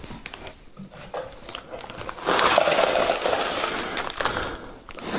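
Crushed potato chips poured from a crinkly plastic chip bag into a plastic tub: a few soft crinkles of the bag, then about two seconds in a dense rattling hiss of crumbs sliding out that lasts about two seconds and tapers off.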